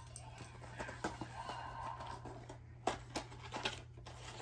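Yo-kai Arc cards being handled: faint rustling with a few light clicks about three seconds in, over a steady low hum.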